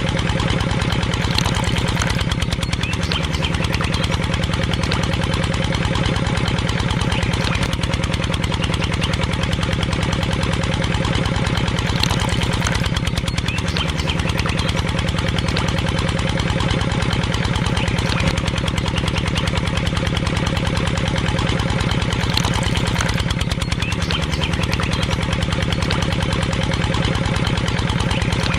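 Small engine of a DIY mini tractor running steadily at a constant speed, with a fast, even firing beat.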